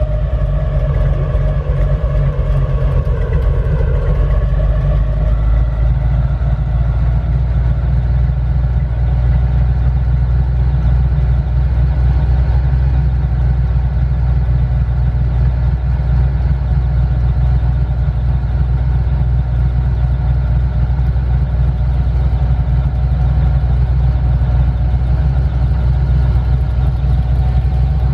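Airboat engine and propeller running steadily at cruising speed: a loud, even, deep drone.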